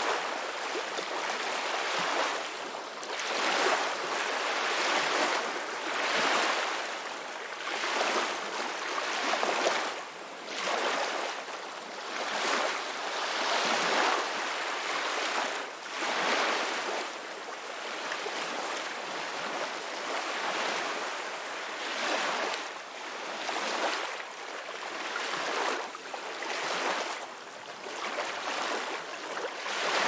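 Calm ocean waves washing onto a beach, the surf noise swelling and easing about every two seconds.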